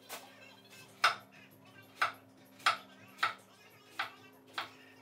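Kitchen knife chopping a yellow zucchini on a wooden cutting board: about seven sharp chops, one every half second to second.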